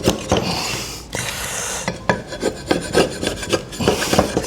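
Scraping, rasping strokes on wood, mixed with short clicks and taps, as a slasher's makeshift wooden handle is worked on.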